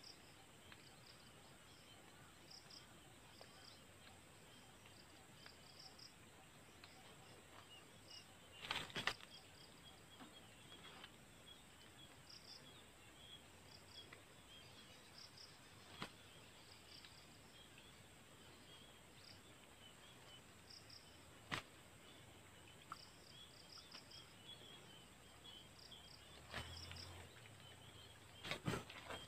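Faint insects chirping in short repeated pulses over quiet rural ambience, with a few sharp clicks here and there.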